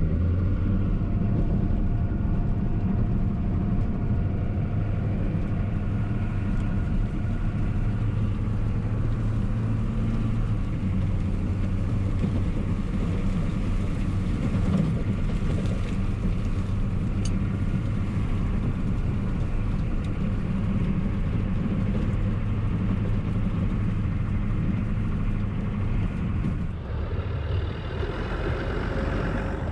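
Old GMC pickup truck's engine running steadily as the truck drives with its V-plow, the sound changing near the end.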